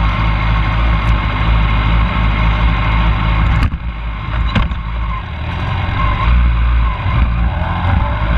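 Sport motorcycle engine idling steadily, heard close up from a camera mounted on the bike, with a sharp knock about three and a half seconds in and a slight rise in pitch near the end.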